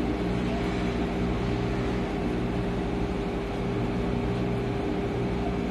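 Steady mechanical hum: a low drone with a steady higher tone over it, unchanging throughout.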